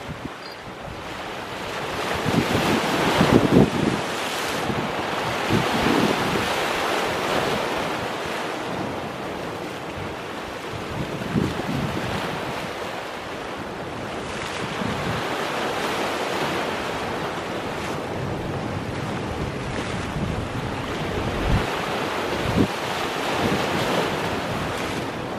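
Sea waves breaking and washing over shoreline boulders, swelling and ebbing with each wave, loudest about three seconds in. Wind buffets the microphone throughout.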